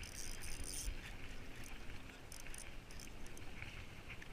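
Spinning reel being cranked to bring in line with a fish on, faint, with low wind rumble on the microphone.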